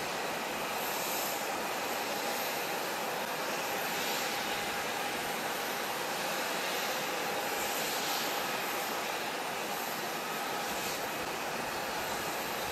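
Steady jet-engine noise of airliners idling on an airport: an even rush with a faint, held whine.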